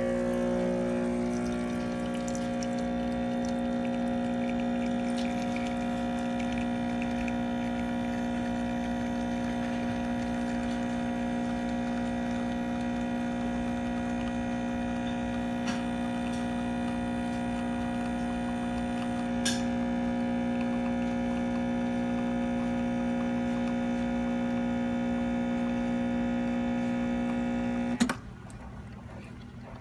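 Breville BES870XL espresso machine's pump buzzing with a steady, loud hum, then cutting off suddenly with a click near the end.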